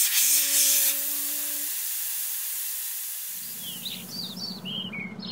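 Air hissing out of an off-road tyre's valve stem as it is aired down, loud at first with a faint whistle, then fading. About three seconds in, birds chirp several times over a low steady hum.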